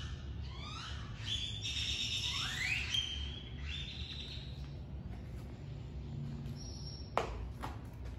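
A songbird singing: a run of quick rising whistles, about two a second, then held high whistled notes with one upward slur. A single sharp downward-sweeping call comes near the end and is the loudest sound. A steady low rumble runs underneath.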